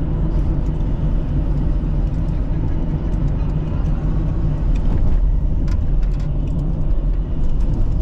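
Car driving: a steady low rumble of engine and tyre noise, with a few faint clicks between five and six and a half seconds in.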